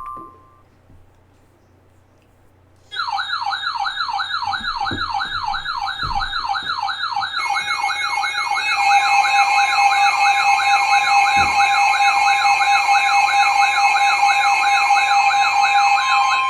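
Electronic wailing siren, its pitch sweeping up and down rapidly about three times a second, that starts abruptly about three seconds in. From about halfway, steady alarm tones join it.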